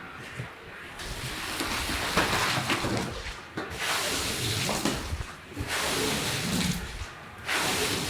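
Wet carpet washing: a hissing, rushing noise of water and cleaning tools on a soaked carpet, in long strokes of about two seconds with short breaks between them.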